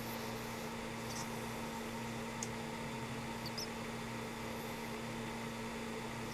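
Old pug asleep, giving a few faint, high squeaky snuffles from its nose over a steady low hum.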